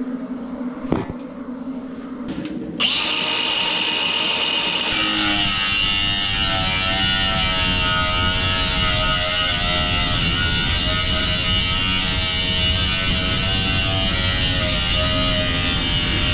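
Cordless angle grinder starting up about three seconds in with a high whine, then cutting steadily through sheet metal, its pitch wavering as the disc bites.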